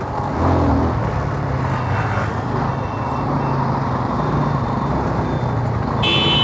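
Motorcycle engine running at low speed in city traffic, with steady road and wind noise. A short vehicle horn beep sounds near the end.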